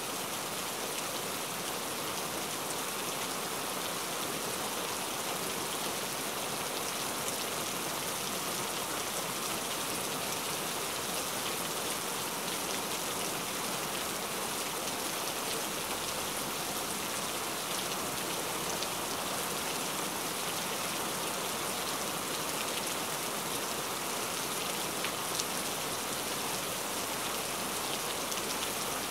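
Steady rain ambience: an even hiss of rain falling, with a few faint ticks.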